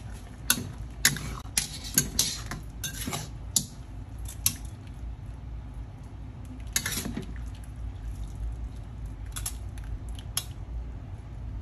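Metal spatula clinking and scraping against a stainless steel wok and a wire mesh strainer as boiled noodles are lifted out of their water. A quick run of sharp clinks in the first few seconds, a few more about seven seconds in, and two single clinks near the end.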